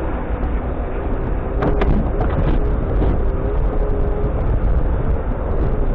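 Jeep Cherokee XJ driving along a muddy off-road track, its engine and drivetrain rumbling steadily as heard from inside the cabin, with a few sharp knocks about two seconds in.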